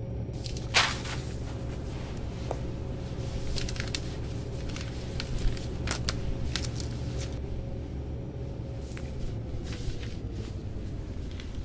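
Tense film sound design: a low, steady rumbling drone with a held tone that slides downward near the end. Scattered sharp clicks and knocks sound over it, the loudest about a second in.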